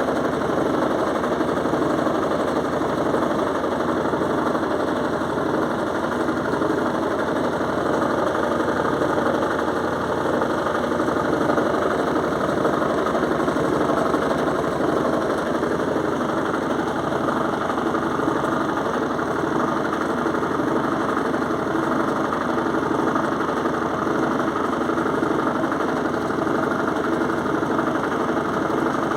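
Electrolux washing machine spinning a heavy duvet: a steady, loud machine drone with a regular pulsing vibration underneath. The noise startled the owner, who takes it to be normal.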